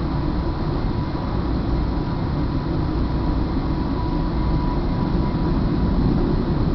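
Steady low rumble of a Northstar commuter train running along the track, heard from inside the passenger car, with a faint thin tone that fades out about five seconds in.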